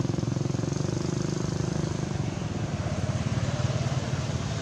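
An engine running steadily with a low, rapid, even pulsing.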